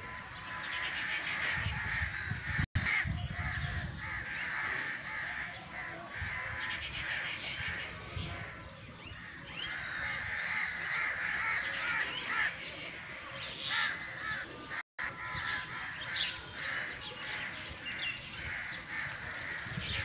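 Crows cawing again and again, several calls overlapping. The sound cuts out briefly twice.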